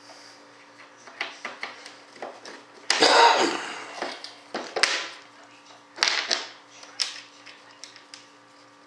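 Small metal bolts and hardware clicking and clattering as they are picked up and handled on a workbench, with a louder, longer clatter about three seconds in and a few sharper clacks after it.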